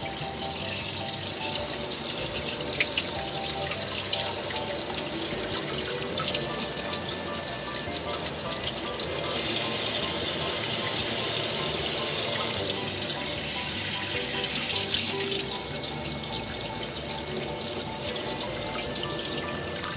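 Kitchen tap running steadily into a metal sink while pieces of fish are rinsed and scaled under the stream. The water hiss grows a little louder for a few seconds around the middle.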